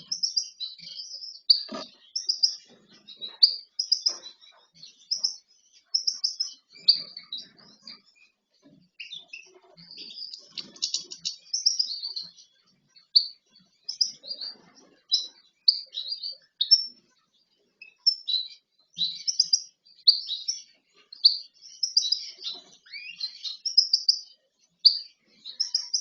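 Small cage finches chirping and calling over one another in quick, high, short notes throughout. There is one knock about two seconds in.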